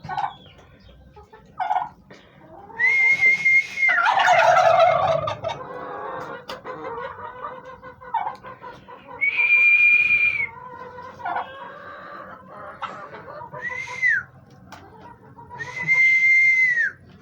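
Heritage turkeys calling: four long, high, whistle-like notes, each ending in a drop in pitch. A rattling gobble comes about four seconds in, with short lower calls between.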